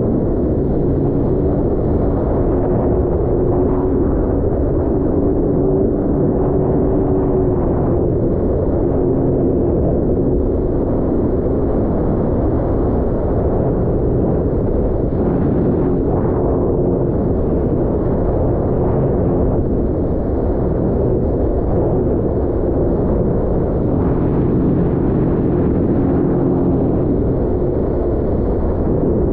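Sea-Doo personal watercraft running steadily while underway, its engine hum mixed with a heavy rumble of wind and water.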